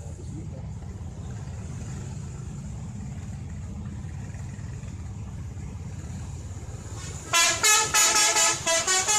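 Tour bus's diesel engine running with a low, steady rumble. About seven seconds in, its telolet multi-tone horn plays a loud, quick tune of several short notes at changing pitches.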